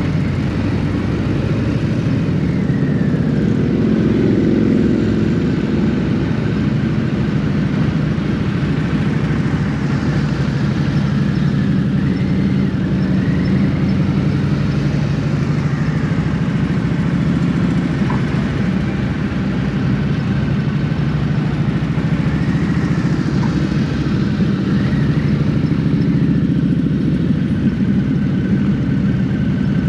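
Harley-Davidson motorcycle's V-twin engine running steadily while riding in a group, heard from the bike itself, with road and wind noise underneath.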